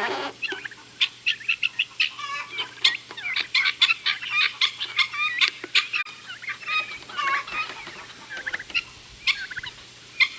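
Turkeys and chickens calling, a busy, continuous run of many short high chirps and clucks.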